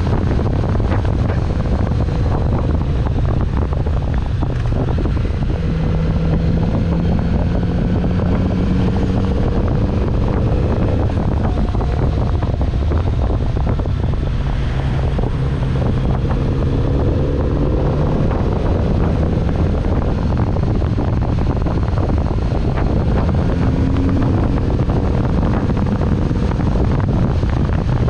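Kawasaki Z900RS's 948 cc inline-four engine running while the bike is ridden, its pitch rising and falling with throttle and gear changes. Heavy wind noise on the microphone runs under it.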